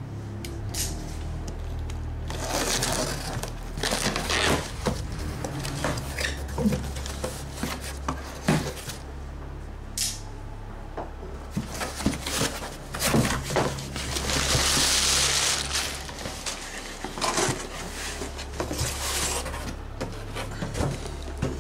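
Cardboard shipping box being opened and unpacked by hand: flaps and brown packing paper rustling and crinkling, with scrapes and knocks of cardboard on a table. A longer rustling, crumpling sound comes about two-thirds of the way through.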